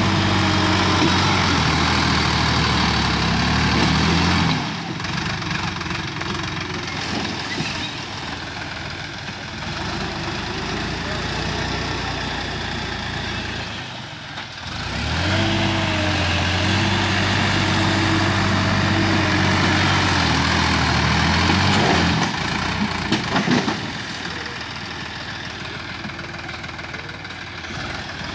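Sonalika DI 50 RX tractor's diesel engine working through deep mud, loud and high in revs for about four seconds, then running lower and quieter, then revving up hard again for about seven seconds. A few sharp knocks come near the end.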